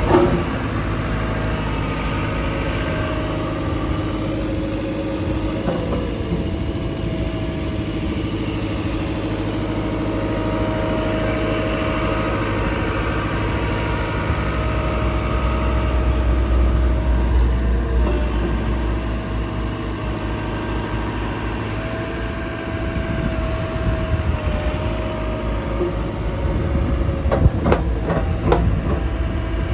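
2019 JCB 3CX backhoe loader's diesel engine running steadily, with a thin whine that comes and goes as the machine works and a deeper, louder spell about halfway through. A few sharp knocks come near the end.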